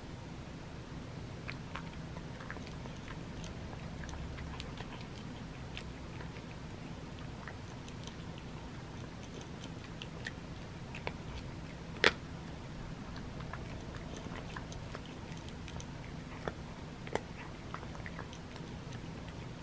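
A cat crunching dry kibble from a bowl: scattered crisp crunches and small clicks, with one sharp, much louder click about twelve seconds in.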